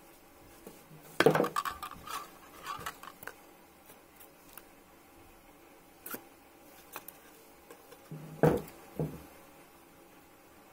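Small hard objects knocking and clattering on a tabletop as thin copper wire and small metal parts are handled: a loud burst of clatter about a second in, a few scattered ticks, then two or three more knocks about eight seconds in.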